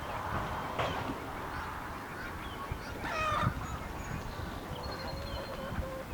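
Farm waterfowl calling: one loud honking call about three seconds in, and a shorter call just before one second, with fainter calls around them.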